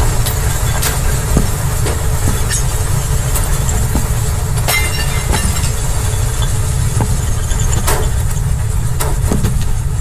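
Earthquake debris sound effect: a steady deep rumble of shaking ground with scattered cracks and clatters of falling debris, the sharpest crack a little before halfway.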